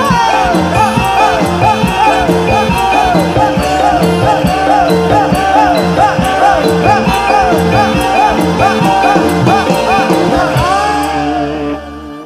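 Live accompaniment music for a Javanese topeng ireng dance: loud, dense ensemble playing with a steady percussion beat under moving melodic lines. It stops abruptly near the end.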